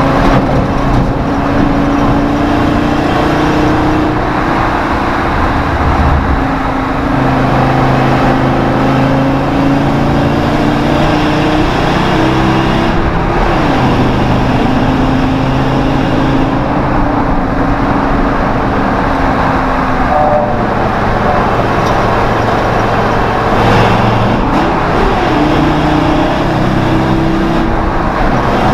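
Ford Triton 6.8-litre V10 engine swapped into a 1970 Ford F100, heard from inside the cab as the truck is driven hard through corners, breathing through a 2.5-inch exhaust with an x-pipe. The engine note rises and falls with the revs and drops away twice before climbing again. Road and wind noise run underneath.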